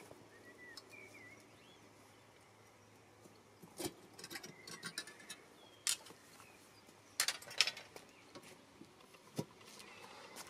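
A handful of sharp clicks and knocks, the loudest cluster about three quarters of the way in, over faint short bird chirps.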